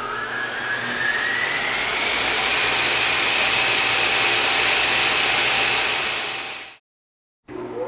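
A machine's motor spinning up: a whine rises steeply in pitch over about three seconds, then levels off under a loud rushing hiss. It fades out and cuts off near the end, then starts spinning up again.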